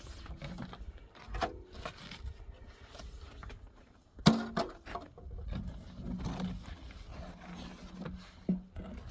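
Irregular knocks and scrapes, the loudest a sharp knock about four seconds in and another near the end.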